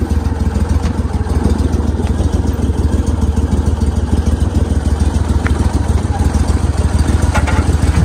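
A boat motor idling steadily at low speed, a loud continuous low rumble as the boat creeps along the net line.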